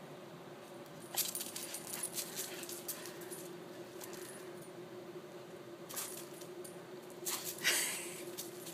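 Two dogs play-wrestling on concrete: scattered scuffs and clicks of paws with the jingle of metal collar tags, loudest near the end, over a steady faint hum.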